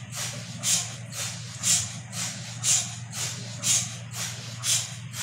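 MRI magnet's cryocooler cold head cycling: a steady low hum under a rhythmic hiss of gas that pulses about once a second.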